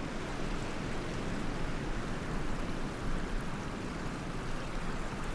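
Steady rushing of hot-spring water, an even noise without any distinct pitch.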